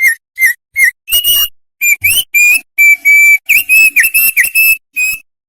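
Opior songbird singing vigorously in clear whistled notes. Four short notes about a third of a second apart lead into a faster run of longer whistles, some sliding up or down, which stops about five seconds in.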